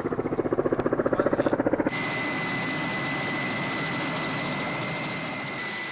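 Helicopter rotor beating in a rapid, even pulse, then changing abruptly about two seconds in to a steady engine whine with a constant high tone.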